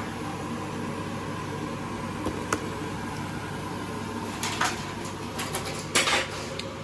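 Steady low hum of a kitchen appliance, with a few scattered clinks and short clatters of utensils and dishes as food is prepared.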